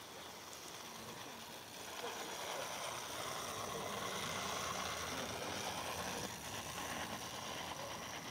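Clockwork tinplate model railcar running along garden railway track: the steady running noise of its spring-driven motor and wheels on the rails, louder from about two seconds in as it passes close, easing off near the end.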